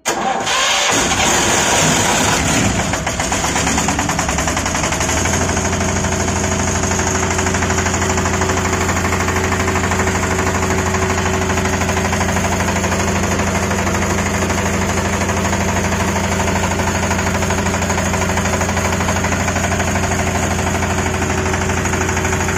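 Kirloskar 5 kVA diesel generator engine starting up: it catches at once and runs unevenly for the first few seconds, then settles into steady, even running from about five seconds in.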